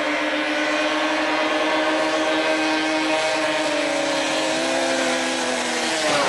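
Racing snowmobiles' two-stroke engines at full throttle in a drag run, holding a steady high-revving note that dips slightly near the end.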